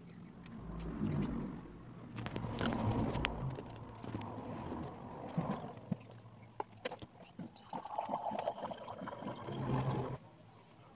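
Close-up eating noises: fingers working rice and fried chicken on plates, with scattered clicks and rustles. Low muffled thumps early on, as the recording phone is knocked, and a muffled hum near the end.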